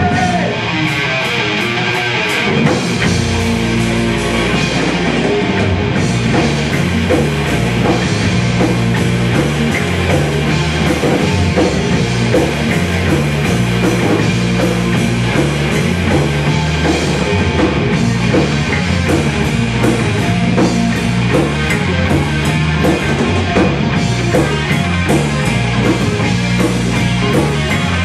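Celtic metal band playing live: distorted electric guitars over a fast-hitting drum kit, with the heavy low end of bass and kick drum coming in about two and a half seconds in.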